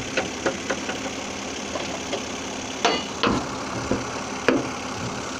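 Saturn Vue engine idling steadily, with several short clicks and knocks of hands and plastic panels being handled.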